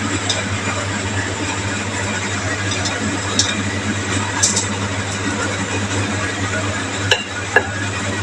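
Oven running while chicken barbecue skewers grill: a steady hiss over a low hum, with a few faint clicks.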